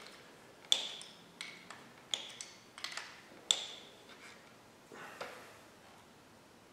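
Sharp metallic clinks and taps, about ten at irregular intervals, each with a short ring. This is an 11 mm wrench working against the motorcycle's rear brake caliper bracket. The clinks stop a little past five seconds in.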